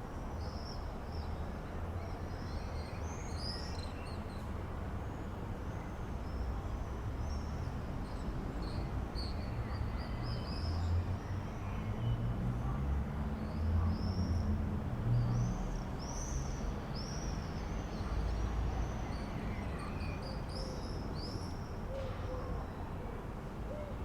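Several songbirds chirping and singing in quick, repeated high notes throughout, over a steady low rumble that swells in the middle.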